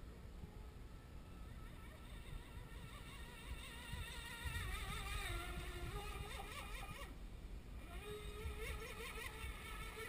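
Brushless electric motor of a 33-inch fiberglass RC catamaran whining as the boat runs across the pond, its pitch wavering up and down with the throttle. The whine drops away briefly about seven seconds in and then comes back, over a steady low rumble.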